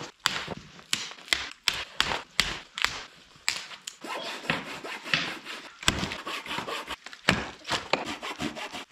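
Dead wood being broken up for firewood: a string of irregular sharp cracks and snaps with woody scraping between them.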